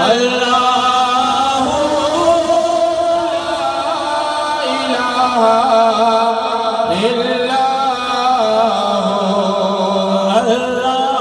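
A man singing an Urdu naat into a microphone over a PA, drawing out long, wavering held notes, with a steady low drone beneath.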